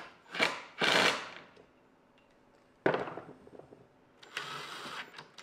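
Four short bursts of harsh, rattling tool noise as stainless steel hex bolts are driven through heavy-duty 600 lb drawer slides into pine boards. The third burst starts suddenly, and there are quiet gaps between the bursts.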